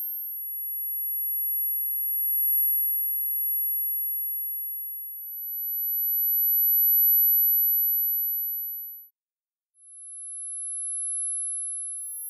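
Synthesized high-pitched pure sine tones in the 10 to 13 kHz range, made as neuromodulation sound for tinnitus. Tones several seconds long at slightly different pitches overlap one another, swelling and fading. About nine seconds in there is a brief silent gap, after which a lower tone comes in, and a higher one joins near the end.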